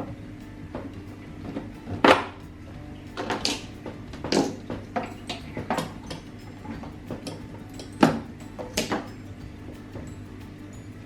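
Clatter and knocks of hard objects being handled and set down, with a handful of louder bangs among lighter clicks, over a steady low hum.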